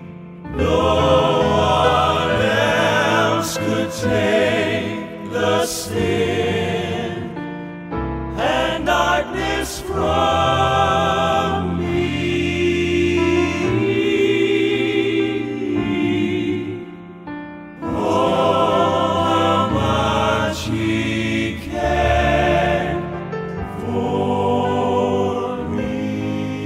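Southern gospel male quartet singing held notes in close four-part harmony with vibrato, over musical accompaniment, in phrases broken by short pauses.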